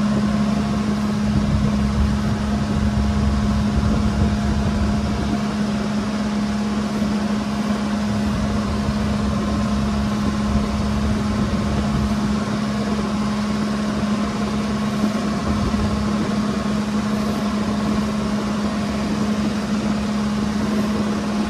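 Engine of a bangka outrigger boat running with a steady drone while under way, over a hiss of water and wind.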